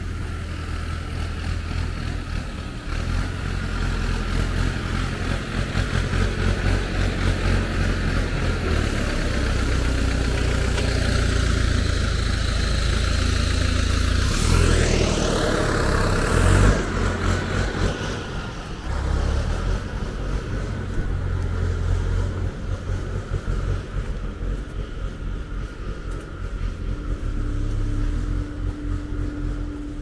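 Sawmill yard machinery running under a heavy low rumble, with wind buffeting the microphone. About halfway through, a whine rises in pitch and then falls away.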